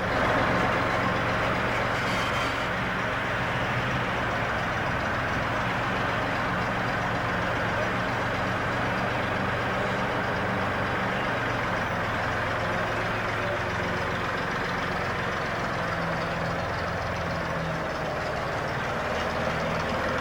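An engine running steadily at an even speed, with a constant low hum and a noisy mechanical rush over it.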